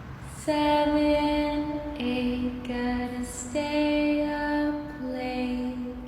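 A woman's voice singing a slow, scary song in long, steady held notes, four notes in all, the first coming in about half a second in.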